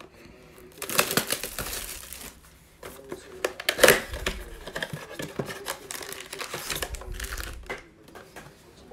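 Plastic wrap crinkling and tearing as it is stripped off a cardboard trading-card blaster box, then the box flaps opened and the foil-wrapped card packs crinkling as they are pulled out. The crackling comes in bursts, loudest about four seconds in.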